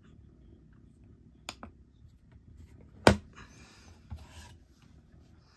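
Handling noises of a compact pistol being moved on a tabletop scale: light clicks about one and a half seconds in, a single sharp knock about three seconds in, a smaller knock shortly after, and some rubbing.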